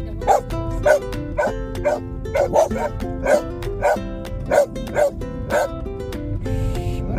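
A dog barking repeatedly in a steady run, about one bark every half second or so, stopping near the end, over background music.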